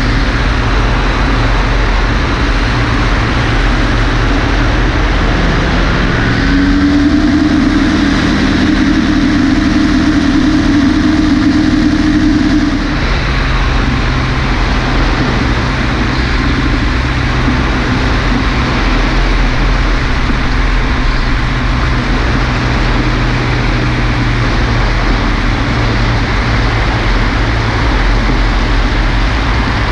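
Pegasus XL-SE microlight trike's engine running steadily in flight, with rushing air over the microphone. About six seconds in the engine note rises and holds a little louder, then steps back down about thirteen seconds in.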